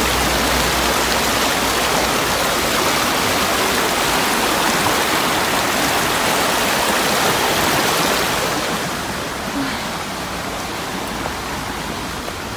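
Small rocky river running fast over stones: a steady rush of water that drops to a fainter hiss about eight and a half seconds in.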